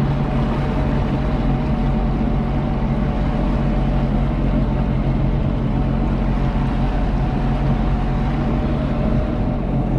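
Sea-Doo GTI jet skis running steadily at low speed, a constant engine hum with no change in pitch, over the wash of water.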